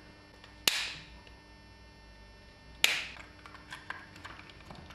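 Two sharp snaps, about two seconds apart, each trailing off in a brief hiss, then a few lighter clicks, over a faint steady hum.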